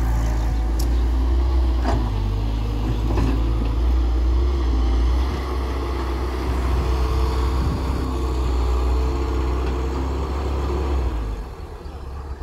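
Heavy diesel engines of a Hyundai Robex 1300W wheeled excavator and a farm tractor running steadily while the excavator works, with a deep continuous drone. A couple of faint knocks come about two and three seconds in, and the drone eases near the end.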